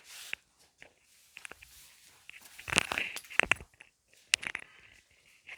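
Scattered sharp clicks and knocks of hard objects, with a quick cluster of louder clinks about three seconds in.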